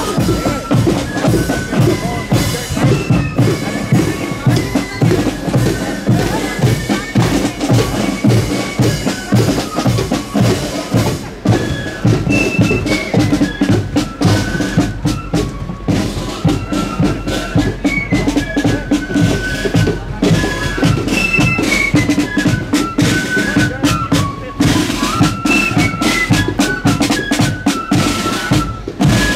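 Marching band playing a march: a high, stepping melody over rattling side drums and a bass drum keeping a steady beat.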